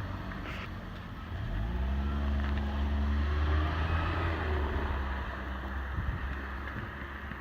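A motor vehicle driving past, its engine note building and then fading over a few seconds.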